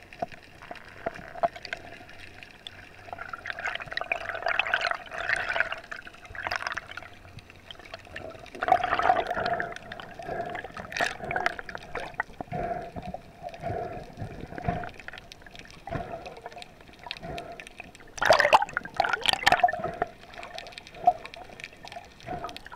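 Water rushing and bubbling around an underwater camera, in loud swells three times over a steady faint hum, with scattered clicks and ticks.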